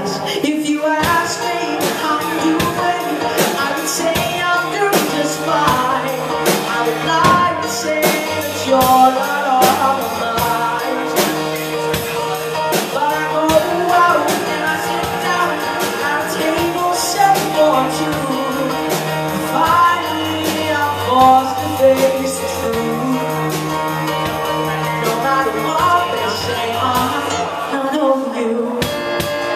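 Live pop-rock band playing a song: a male vocalist singing into a microphone over a drum kit and keyboard, with regular drum hits. The low end drops out about two seconds before the end.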